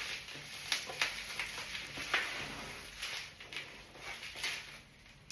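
Packaging being handled while a parcel is unboxed: rustling and crinkling with scattered sharp clicks and taps.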